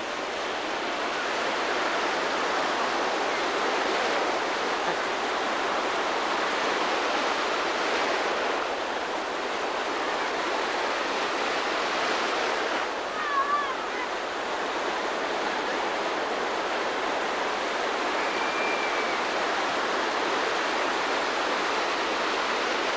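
Ocean surf breaking and washing in the shallows: a steady rushing noise.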